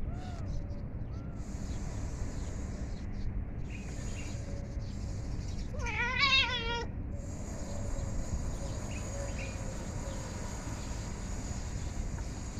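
A domestic cat meows once, a loud call with a wavering pitch lasting just under a second, about six seconds in.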